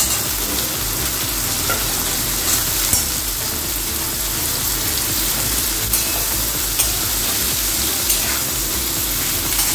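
Cauliflower florets and radish sizzling as they fry in hot mustard oil in a steel kadai, stirred with a metal spatula that clicks against the pan now and then.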